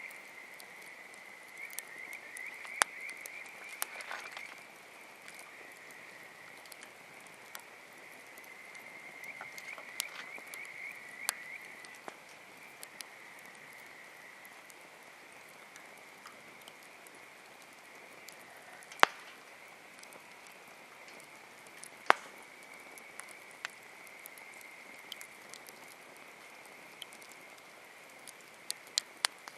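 Campfire wood crackling, with scattered sharp pops, two loud ones about 19 and 22 seconds in. Behind it a steady high-pitched chorus of calling frogs swells into trills about two seconds in and again about ten seconds in.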